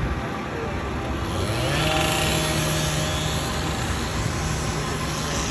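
Vehicle engine speeding up about a second in, its pitch rising and then holding steady, over a constant rush of traffic and road noise.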